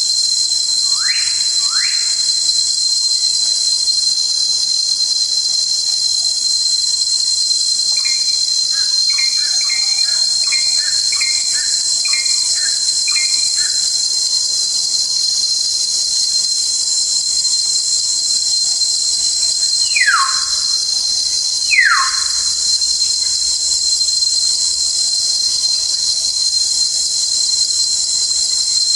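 Steady shrill chorus of forest insects: a constant high tone with a hiss above it. Over it, a bird gives descending whistled calls, two near the start and two about twenty seconds in, and a run of short chirps around the middle.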